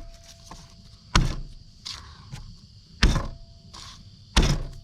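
Knife coming down hard on a cutting board three times, a sharp thump each time, as garlic cloves are cut.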